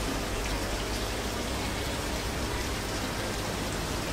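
Steady fizzing and splashing of air bubbles rising through a large aquarium from its aeration, with a low steady hum underneath.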